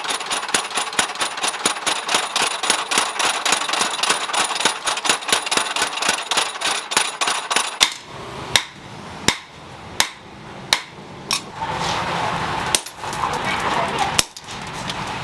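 Mechanical power hammer pounding a red-hot steel shock-absorber piston rod on its anvil in a fast, even rhythm of several blows a second, over a steady high whine; it stops about eight seconds in. Then a hand hammer strikes the hot steel on the anvil about seven times, unevenly spaced.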